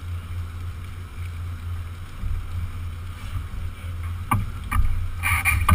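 Marine engine hum running steadily under wind noise. Near the end come a couple of sharp knocks and a short clatter as crew climb into the rescue boat.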